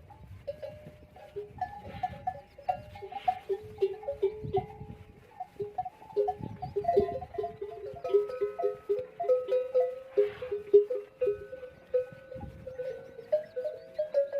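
Bells hung on the necks of a herd of camels, clanking unevenly as the animals move. Many bells at a few different pitches ring over one another, and the ringing grows busier and louder about halfway through.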